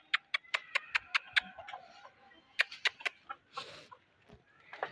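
Domestic chickens clucking softly as they go into the coop, with a quick, even run of sharp clicks in the first second and a half and a few more clicks near the middle.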